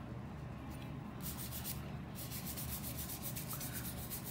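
A small soft brush stroked quickly and repeatedly over a Samyang 85mm f/1.4 camera lens, giving a run of short dry brushing scratches.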